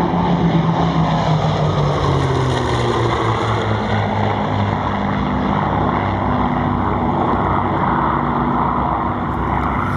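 Piston engines of a low three-plane warbird formation led by a Grumman F7F Tigercat with twin Pratt & Whitney R-2800 radial engines, droning as the planes fly past and away. The engine pitch falls over the first few seconds and then holds steady.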